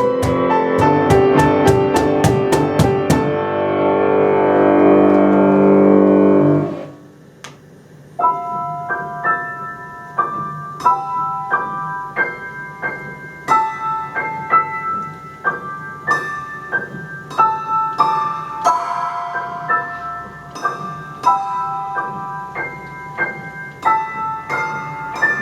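Instrumental performance of a piano piece: a fast run of percussion hits over a loud held piano chord that cuts off about seven seconds in, then solo piano playing a melody of single notes and chords.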